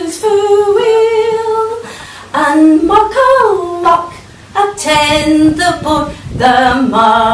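A woman singing, holding long notes that slide up and down in pitch, with no clear accompaniment.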